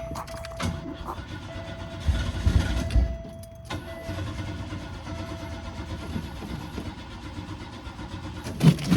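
A car's starter cranks the engine in a burst of about a second, starting around two seconds in, after a shot of starting fluid; the engine does not catch and run. A steady thin whine runs underneath throughout.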